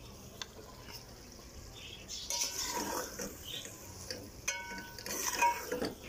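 A metal spoon stirring diced raw potatoes into beef keema in a metal pot, scraping and clinking against the pot, starting about two seconds in, with one sharp ringing clink a little past halfway.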